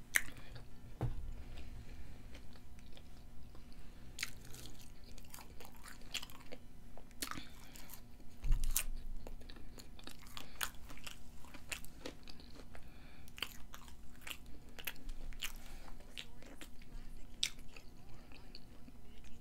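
Close-miked chewing of a mouthful of fast food, with many sharp wet mouth clicks and smacks. A dull thump about eight and a half seconds in is the loudest moment.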